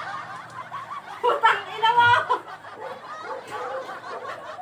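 Snickering, chuckling laughter mixed with a little low talk, loudest between about one and a half and two and a half seconds in.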